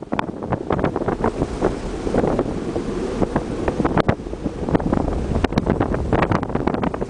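Wind buffeting the microphone on a ship at sea, in irregular gusty blasts over a steady rush of sea and a low rumble.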